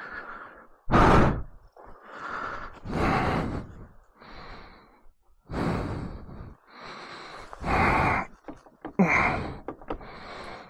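A man breathing hard, with repeated heavy sighs and exhales about once a second, shaken after a motorbike crash.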